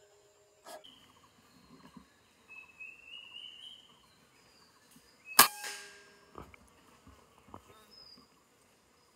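A single sharp shot from a PCP air rifle about five seconds in, the one loud sound, after a faint click and a short rising whistle; a few small clicks follow.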